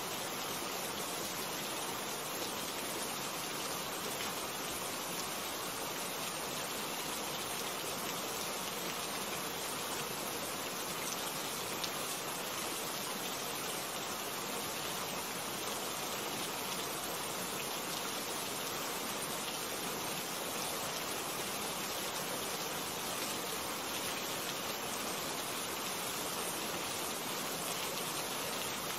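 Steady rain falling: a dense, even hiss that goes on without a break.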